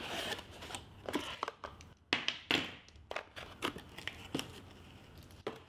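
Cardboard packaging being handled: a small cardboard accessory box opened and its contents taken out, with irregular rustling, crinkling and light knocks.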